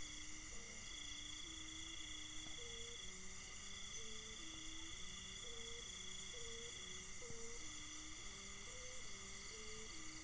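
A Thai Isan kite hummer (sanu), the bowed reed strung on a kite flying high, humming faintly, its tone jumping between several pitches about every half second as the strong wind aloft gusts. Crickets chirp steadily behind it.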